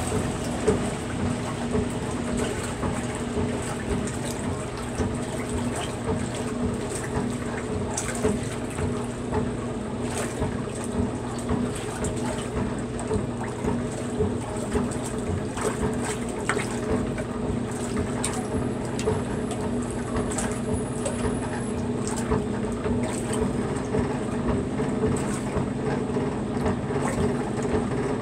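Maytag wringer washer agitating a load in soapy water: a steady hum from the machine under continuous sloshing and splashing of the wash water.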